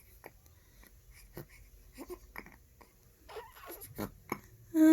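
Two-month-old baby hiccuping: short, soft catches at uneven intervals, about six or seven, with small breathing sounds between. A louder voice starts right at the end.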